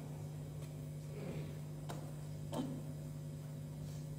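Three faint taps, spaced about half a second to a second apart, over a steady low hum.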